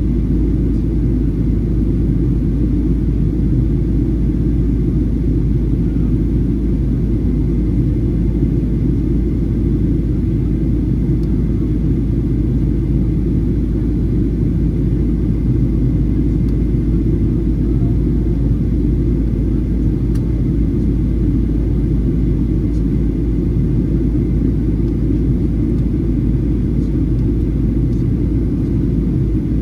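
Steady low rumble inside the cabin of a Boeing 737-800: its two CFM56-7B turbofan engines and the airflow over the fuselage.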